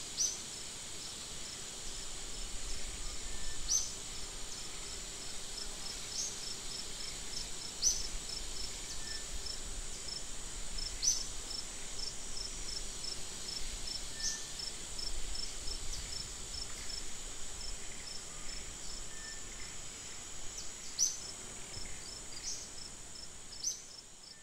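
Steady high-pitched insect chorus, with a pulsing call repeating several times a second and short sharp chirps every few seconds.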